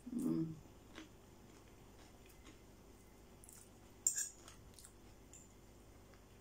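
A short hummed "mm" as a forkful of food goes into the mouth, then quiet chewing with faint wet clicks. About four seconds in, a metal fork clinks and scrapes sharply on a china plate.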